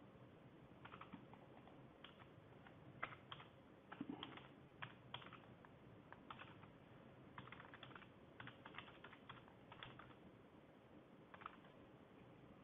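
Faint typing on a computer keyboard, the keystrokes coming in short irregular runs.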